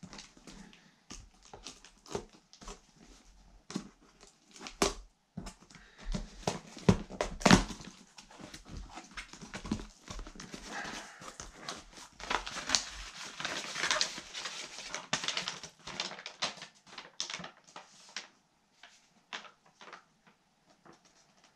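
A cardboard shipping box being opened by hand: packing tape peeled and torn, cardboard flaps handled with sharp crackles and knocks, then a longer stretch of rustling about halfway through, and a few lighter rustles near the end as paper is taken out.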